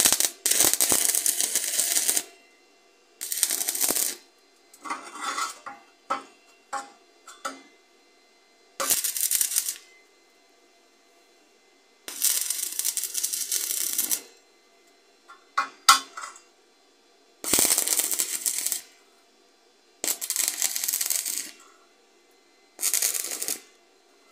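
Stick (arc) welding on steel: the electrode crackles in runs of one to two seconds each, separated by short pauses, with a few brief sputtering arc strikes in between, as a tube bracket is tack-welded onto a steel profile.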